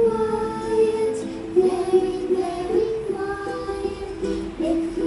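A children's song playing: voices singing a slow, gentle melody with long held notes.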